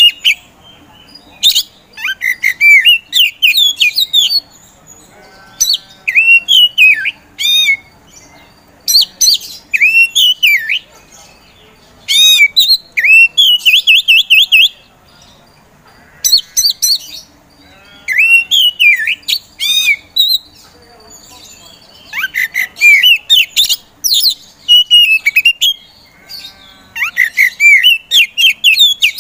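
Oriental magpie-robin of the white-bellied 'kacer poci' form singing loudly: bursts of varied sweeping whistles and rapid trills, in phrases of one to three seconds with short pauses between.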